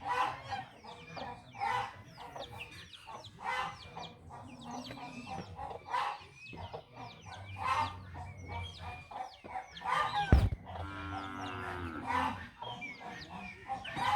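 Farmyard fowl clucking and calling every couple of seconds, with small birds chirping throughout and a sharp thump about ten seconds in.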